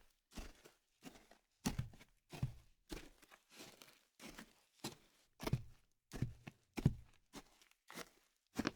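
Footsteps walking at a moderate, even pace, about three steps every two seconds.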